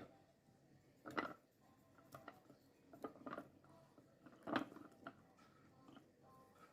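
Faint food-preparation handling sounds: a handful of short, soft noises roughly a second apart, the loudest about four and a half seconds in.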